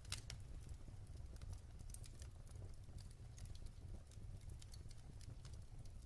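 Wood fire crackling in a fireplace: irregular sharp pops and snaps, several a second, the loudest just after the start, over a low steady rumble.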